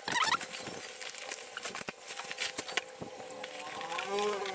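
Unpacking noise: a plastic mailer bag and a flattened cardboard box being handled, a string of small irregular crinkles and clicks.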